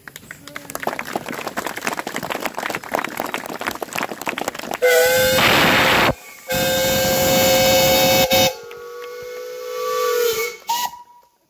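Crowd clapping, then miniature steam locomotive whistles: two loud blasts with a short break between them, then a lower, longer whistle that grows louder, and a brief higher toot near the end.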